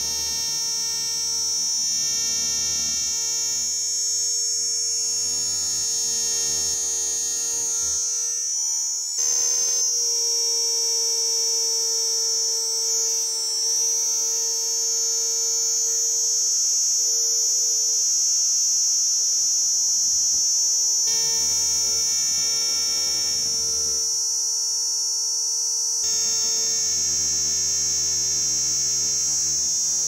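A cicada singing: a steady, shrill, buzzing drone, with a brief break about nine seconds in.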